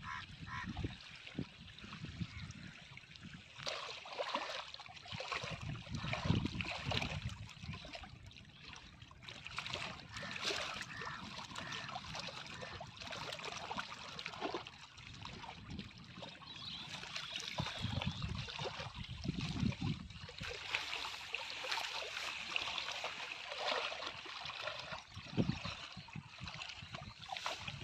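Small river waves lapping and splashing against a rocky bank, uneven and continuous, with irregular low rumbles of wind on the microphone.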